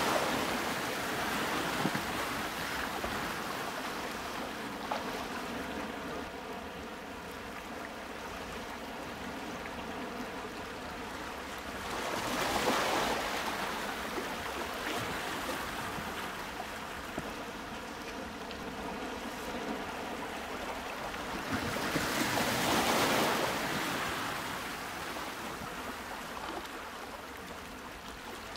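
Waves washing in slow swells that build and fade about every ten seconds, an even hiss of moving water.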